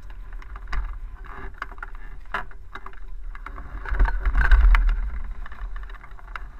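Wind buffeting the microphone of a small action camera mounted on a hang glider, with a stronger gust about four seconds in. Scattered light clicks and knocks come from the glider being handled.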